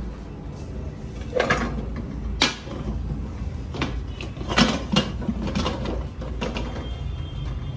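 Aluminium pressure cooker lid being set on the pot and its handle turned to lock it shut: a series of metal clanks and scrapes, the sharpest at about two and a half and four and a half seconds in.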